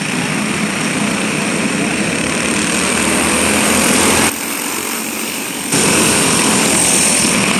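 Several racing go-kart engines running together as the pack laps the track, a steady mixed engine noise. About four seconds in, the sound suddenly drops in level, then comes back about a second and a half later.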